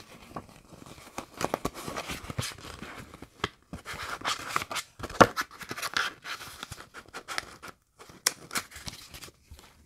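Plastic-wrapped craft die packages being handled and shuffled on a table: irregular crinkling, scraping and clicking, with one sharper click about five seconds in.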